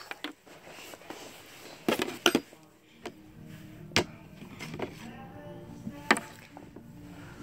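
Handling noise: a few sharp clicks and knocks as small objects are handled, with a cluster about two seconds in and single clicks about four and six seconds in.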